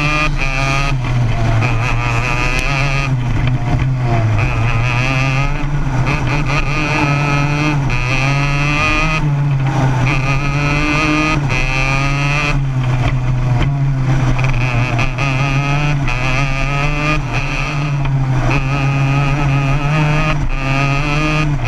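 Racing kart's engine at race pace, heard from on board: its pitch climbs on each straight and drops away whenever the driver lifts for a corner, about half a dozen times.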